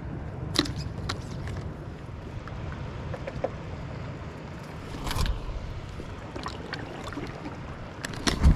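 Low, steady rumble of light wind on the microphone, broken by a few sharp clicks and knocks; the loudest knocks come near the end.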